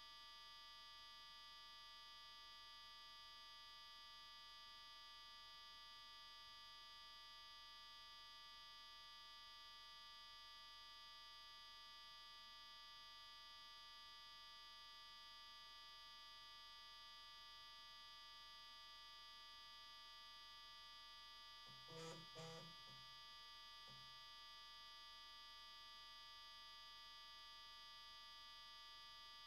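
Near silence with a faint, steady electrical hum and whine: the demo's sound has dropped out. About 22 seconds in come two short pitched blips, one right after the other, and a fainter one shortly after.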